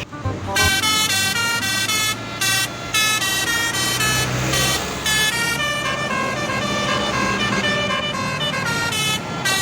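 Bus telolet basuri horn playing a quick melody of short stepped notes, several horn tones sounding together, with brief breaks between phrases.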